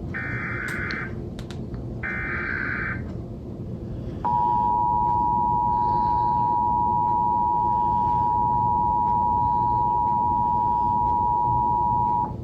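Emergency Alert System SAME header: two short, buzzy digital data bursts about a second apart. Then comes the EAS two-tone attention signal (853 and 960 Hz sounded together), a steady, louder tone held about eight seconds before it cuts off sharply. Together they open a Required Monthly Test alert.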